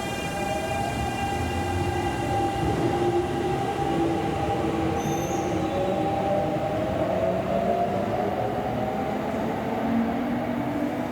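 Kintetsu electric train moving through the station, its motors whining in tones that rise slowly in pitch over several seconds, with a high steady ringing that fades away in the first few seconds.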